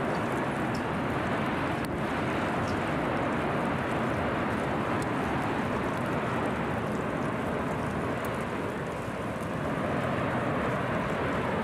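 Steady, rushing roar of the Litli-Hrútur volcanic eruption, like a distant jet, with a few faint high ticks over it.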